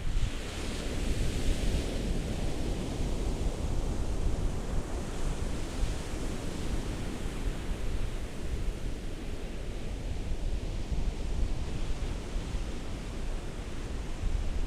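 Ocean surf washing ashore in continuous waves, a steady wash of noise with a deep low rumble. It swells as a wave breaks about a second in, and again midway and near the end.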